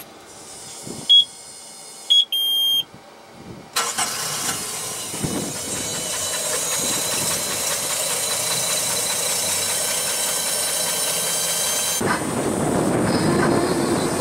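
Dash warning beeps, two short and one longer, at key-on. About four seconds in, a Volvo Penta 4.3 GXi fuel-injected V6 sterndrive engine starts and runs steadily. Near the end the sound changes to the boat underway, engine running with water rushing past the hull.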